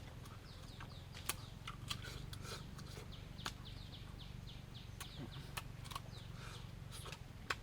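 Faint scattered sharp clicks and taps over a low hum. About two seconds in comes a quick run of short falling chirps, about five a second, from a bird calling.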